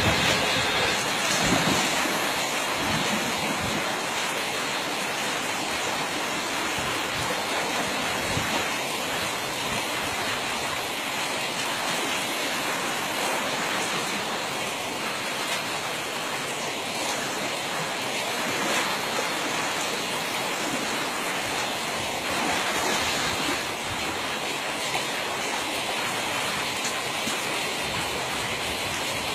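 Steady rushing of a shallow, fast-flowing stream, with some wind buffeting on the microphone in the first few seconds.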